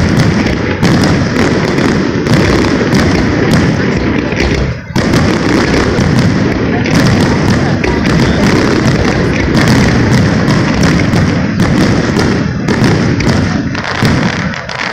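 Aerial fireworks display in a dense barrage: shell bursts and crackling follow one another so fast that they run together into one continuous loud din, with a brief gap about five seconds in.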